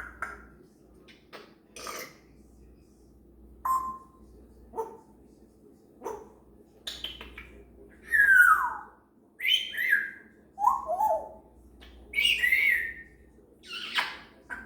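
African grey parrot chattering to herself and practising sounds: a string of short whistles, clicks and falling whistled calls with pauses between them, the louder calls coming in the second half.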